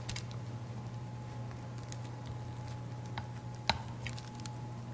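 Soft patting and squishing of a sticky oat mixture being pressed into a log by hand on parchment paper, with a few light ticks and one sharper click near the end, over a steady low hum.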